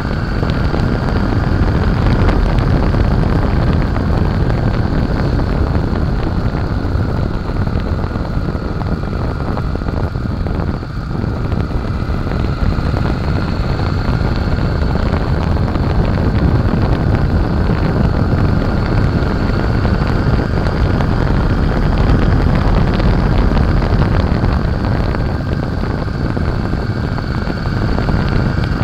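2007 Honda Shadow Aero 750 motorcycle riding at speed, with the wind buffeting the bike-mounted microphone over its V-twin engine running. The noise is loud and steady, with a brief dip about eleven seconds in.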